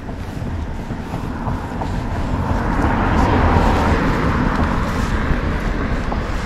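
A vehicle passing by: a rushing noise that swells to a peak about halfway through and then fades.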